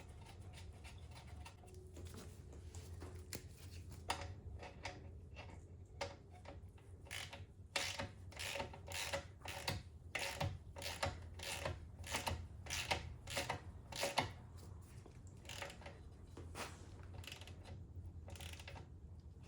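A socket ratchet clicking in quick runs, several clicks a second, as the sump plug is wound back into the Suzuki DR650's engine, over a faint steady hum.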